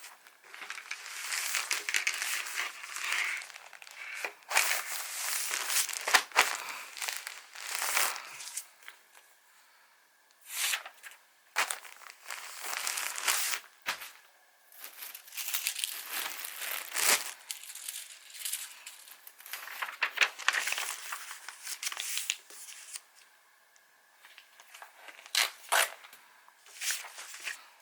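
Packaging being handled during order packing: crinkling and tearing in irregular bursts with sharp clicks, broken by short pauses.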